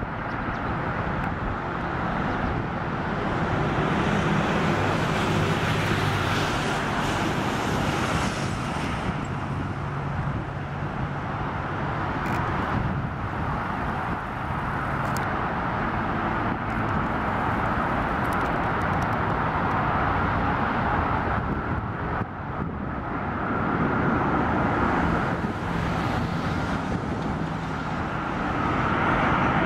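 Steady road traffic noise, with the approaching Airbus A330-300's Rolls-Royce Trent 700 engines building under it toward the end as a steady whine on final approach.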